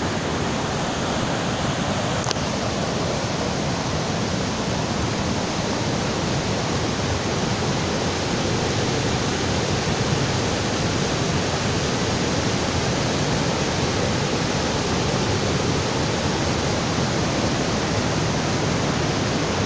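Waterfall and its fast-flowing stream rushing close by, a steady, unbroken roar of water.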